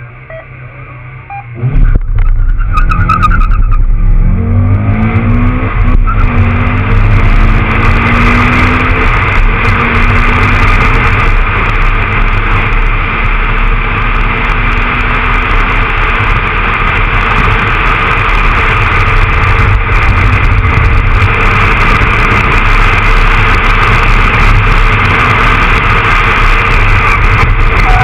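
Stock Honda Accord Type-R's H22A7 2.2-litre VTEC four-cylinder launching hard about two seconds in, revving up sharply and then running flat out, with heavy wind and road rush on the outside-mounted camera.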